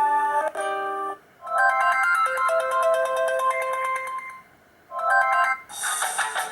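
Stock ringtones of a Black Fox B5 (BMM531A) phone playing one after another: several short electronic melodies, each separated by a brief pause, with a fuller new tune starting near the end.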